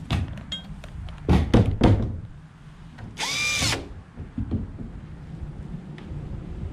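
A wooden shed door is pushed shut, knocking against its frame a few times. A second or so later a cordless drill runs in one short burst, its motor pitch rising and then falling.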